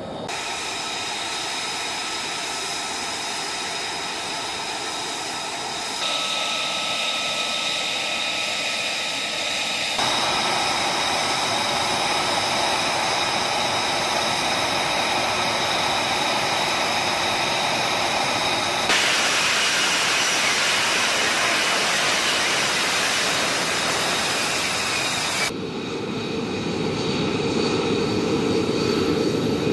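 F-35 Lightning II's F135 jet engine running: a steady high whine over rushing noise. The sound changes abruptly several times, every few seconds, as different shots are joined.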